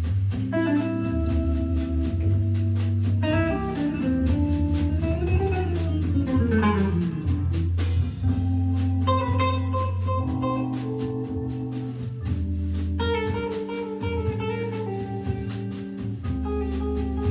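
Jazz organ trio playing: Hammond B3 organ holding bass notes and chords under a guitar line, with a drum kit keeping a steady cymbal pulse.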